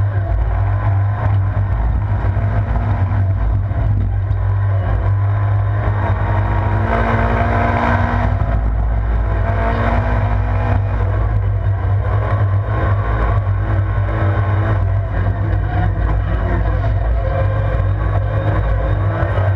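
Vauxhall Corsa rallycross car's engine running hard at racing speed, heard from inside the stripped cabin over a heavy low drone. The engine note rises and falls as the car is driven through the corners, and is loudest about seven to eight seconds in.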